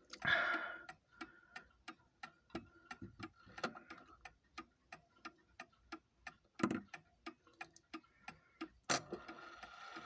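Mauthe time-and-strike mantel clock movement ticking with a brisk, even beat. About nine seconds in there is a sharp click, followed by a faint steady whirr as the strike train begins to run.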